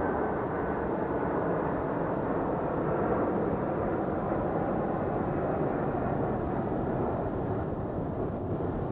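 Jet airliner flying low overhead: a loud, steady rush of engine noise that begins to fade near the end.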